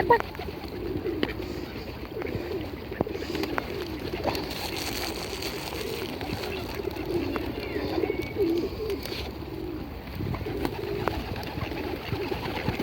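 Several pigeons cooing over and over, with scattered light clicks and a sharp knock at the very start.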